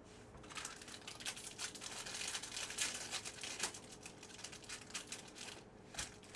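Foil wrapper of a baseball card pack crinkling and tearing as it is ripped open, a dense crackle for several seconds, with a sharp click near the end.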